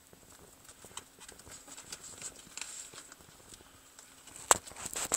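Irregular light scratching and tapping of a juvenile Bosc monitor's claws on cork bark and loose substrate as it moves, with a sharp, louder knock about four and a half seconds in.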